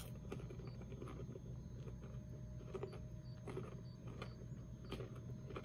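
A person chewing a mouthful of crunchy caramel popcorn: faint, irregular crunches over a steady low hum.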